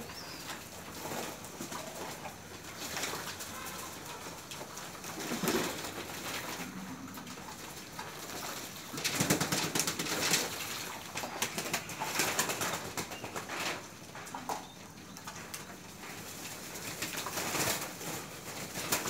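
Domestic pigeons cooing, with several bursts of wing flapping, the longest about nine seconds in.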